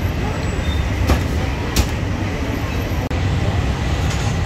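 Steady low rumbling background noise of a busy street food stall, with two short clicks of utensils or containers about one and two seconds in.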